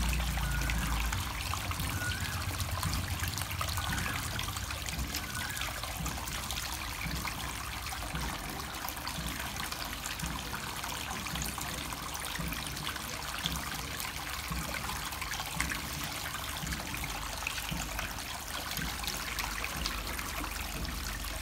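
Water trickling and splashing steadily down a driftwood waterfall feature into a small pond. A low rumble sits under it during the first few seconds.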